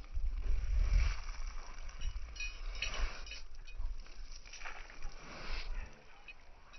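Wind buffeting the microphone in an uneven low rumble that fades out about six seconds in, with a few brief high bird calls around the middle.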